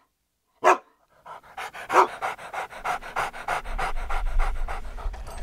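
A dog panting fast and steadily, about six breaths a second, starting about a second in. Just before it comes a single short sharp hit.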